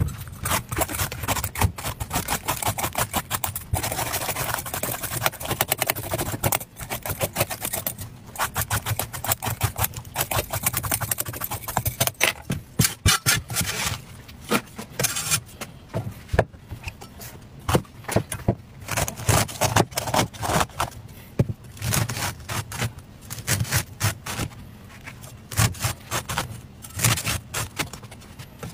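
A cleaver scraping the skin off long green gourds and cutting through them on a wooden chopping board, in rapid runs of scraping strokes with short pauses.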